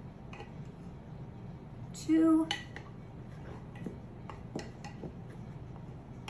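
A tablespoon scooping flour from a canister, with light clinks and taps of the spoon against the canister and bowl. A brief vocal sound, a hum or half-word, comes a little after two seconds in and is the loudest thing.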